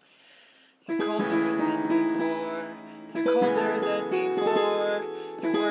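Portable electronic keyboard playing a slow chord progression. The first chord comes in about a second in, and new chords follow near the middle and near the end.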